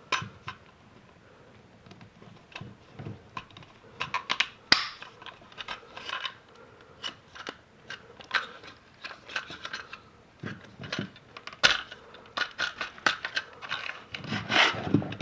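Irregular clicks, taps and scraping of an old-work electrical box being handled as Romex cable is pushed in through its knockout tab, with a few sharper clicks about five and twelve seconds in.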